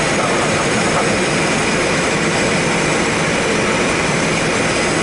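Steady rush of airflow over the canopy and airframe of an L-23 Super Blanik glider in flight, heard inside the cockpit; there is no engine.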